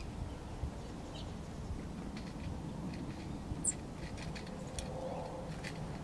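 Small birds feeding at a tube seed feeder: faint, irregular clicks and taps of seeds being cracked and of bills and feet on the feeder tray, over a low steady rumble.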